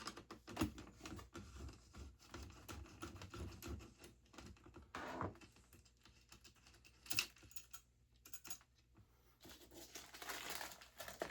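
Faint, irregular small clicks and light rustling from hand work with small hardware: screws and plastic washers being handled and dropped into a plastic zip bag. There are a couple of slightly louder clicks partway through.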